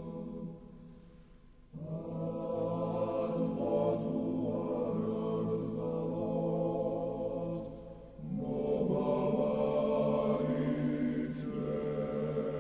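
Choral chant sung in slow, sustained harmony, fading out briefly about a second in and dipping again around eight seconds before going on.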